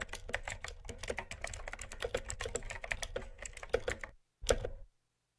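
A very small pencil scratching on sketchbook paper in quick short strokes, several a second, stopping about four seconds in with one more brief burst of strokes just after.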